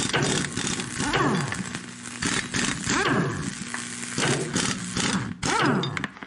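Metal-cutting sound effect with sparks: a crackling, sizzling hiss over a steady hum, with a falling whine about every two seconds, fading out at the end.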